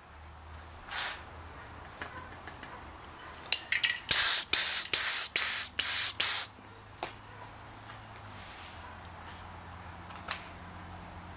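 Aerosol spray can sprayed in about six short, quick bursts over two seconds, a loud hiss with each press.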